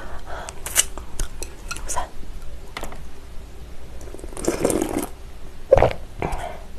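Close-miked chewing with small wet mouth clicks. About four seconds in come loud, noisy slurps of cold broth with agar-jelly noodles, drunk straight from a glass bowl.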